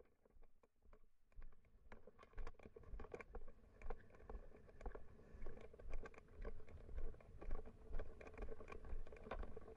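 Footsteps of a hiker walking down a stony, gravelly mountain trail: a walking rhythm of crunches on gravel and clicks of boots on loose rock, faint at first and louder after about two seconds.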